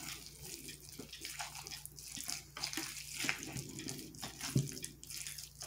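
Wet, irregular squelching and scraping of a spatula stirring raw ground sirloin with tomato paste and barbecue sauce in a crock pot.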